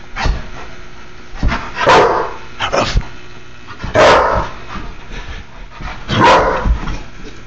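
Akita dog barking three times, about two seconds apart, with a few shorter, softer sounds in between.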